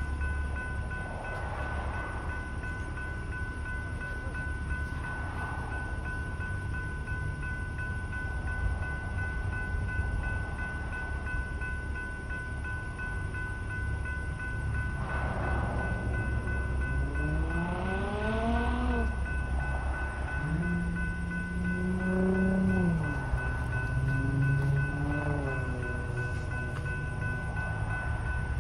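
Railroad crossing signal's General Signals type 3 electronic bells ringing steadily over a low rumble. About halfway through, a motor whine rises in pitch, holds, then falls away.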